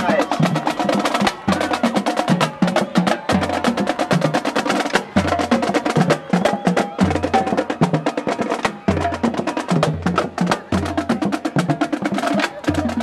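Marching band drumline playing a cadence: fast, sharp snare and stick clicks over tuned bass drum notes at a few different pitches.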